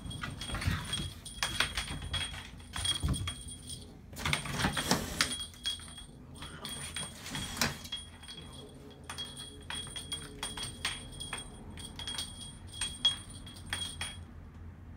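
A small bell jingling on and off in short irregular stretches, with scattered light knocks and rustles and a louder rush of noise about four to five seconds in.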